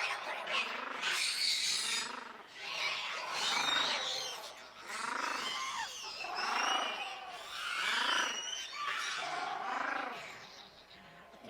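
A monkey calling over and over in high-pitched screeching calls that rise and fall, one about every second and a half.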